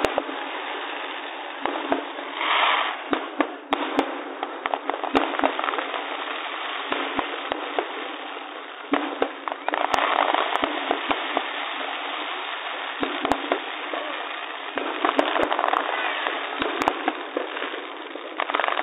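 Aerial fireworks going off: dozens of sharp bangs and pops at irregular intervals, several shells bursting close together at times, over a constant noisy background.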